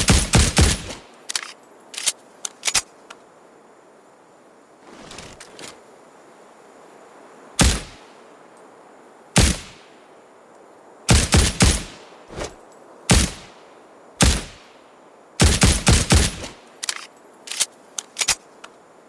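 Suppressed Ruger Security-9 9mm pistol firing, mixing quick strings of shots with single shots spaced a second or more apart, with fainter sharp ticks in between.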